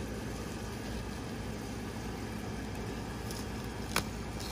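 Steady low background hum, with a short sharp snap about four seconds in as a knife blade cuts into a zucchini stem.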